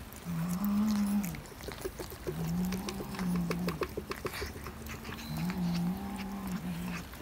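Three low, drawn-out moaning animal calls, each about a second long and spaced a couple of seconds apart, with light clicking in between.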